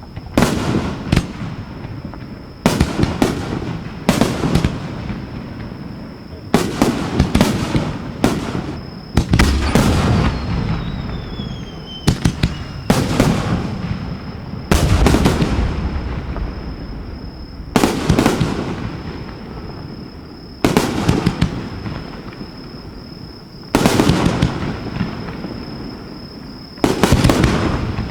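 Fireworks shells launched and bursting in quick succession close by: about twenty loud, sharp bangs, often two close together, each trailing off in a long echo. A brief falling whistle sounds about ten seconds in.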